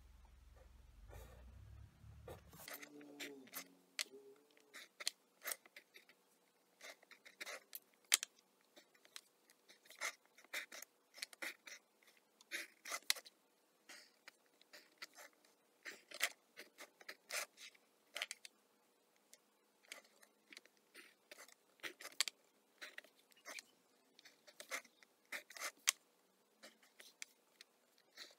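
Pencil drawing short lines along a plastic set square on drafting paper: faint, quick scratchy strokes and light ticks, several a second and irregular, as each line is drawn and the triangle is shifted.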